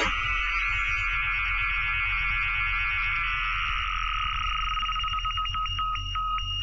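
Electronic computer-style sound effect: a rapid, fluttering two-tone electronic trill that steadies, then breaks into short beeps near the end.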